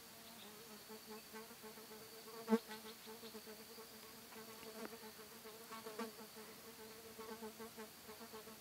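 A flying insect buzzing close to the microphone, its low drone swelling and fading as it moves about, with a brief sharp bump about two and a half seconds in.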